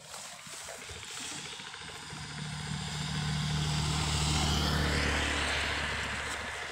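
An engine passing by: a low, steady drone that grows louder to a peak about four to five seconds in, then fades, with a rushing sound at its loudest.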